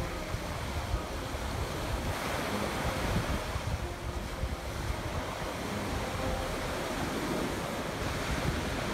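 Small waves breaking and washing up the shore in a steady surge, with gusts of wind rumbling on the microphone.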